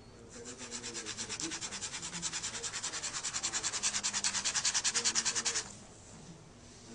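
Pen scribbling rapidly back and forth on a paper slip lying on a wooden desk, scratching over a printed barcode to damage it, about seven strokes a second. It gets louder as it goes and stops abruptly about a second before the end.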